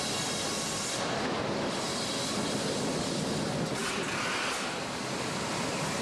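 Sawmill machinery running: a steady, dense mechanical din with a faint steady hum in it.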